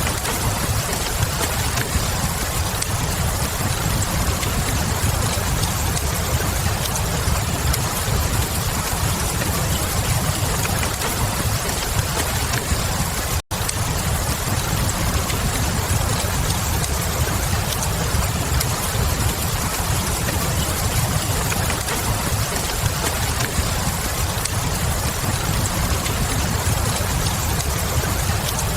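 Steady ambience of fire crackle mixed with rain, over a constant low rumble. The whole mix cuts out for a split second about halfway through, then carries on unchanged.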